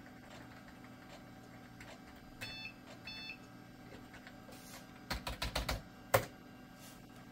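Two short electronic beeps from the computer, about two and a half and three seconds in, then a quick run of keystrokes on a Dell QuietKey keyboard, ending in one sharper key press about six seconds in.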